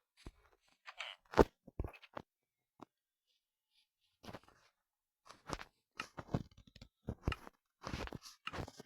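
Irregular crunching and rustling handling noises with sharp knocks, the loudest about a second and a half in, then a quiet gap and a denser run of crunches in the second half.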